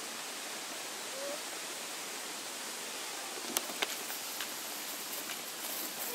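Steady, even rushing outdoor background noise, with a few faint clicks about halfway through.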